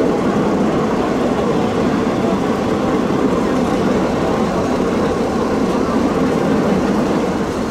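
Passenger train running steadily along the track, heard from an open carriage window: a continuous loud rumble of wheels and running gear.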